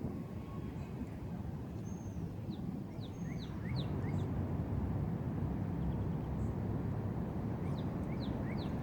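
Wind rumbling on the microphone, with a songbird singing a short phrase of a high whistle followed by several quick falling chirps about two seconds in and again near the end.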